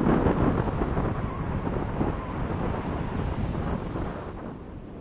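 Wind buffeting the microphone over the rush of surf breaking on the shore, louder at first and easing near the end.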